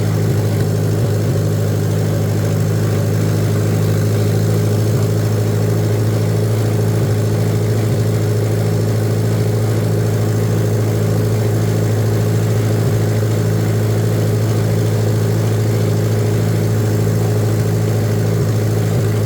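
Tractor engine running steadily at one constant speed.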